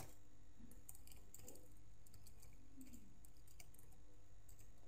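Computer keyboard typing: faint, irregular key clicks over a low steady hum.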